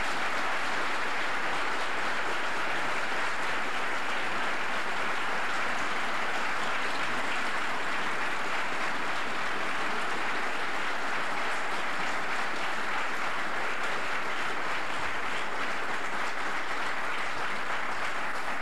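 Audience applauding in a long, steady round, welcoming a speaker to the podium.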